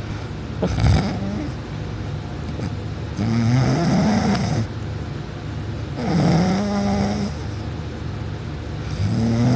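A person snoring loudly in deep sleep: three long, pitched snores about three seconds apart, with a fainter breath just under a second in.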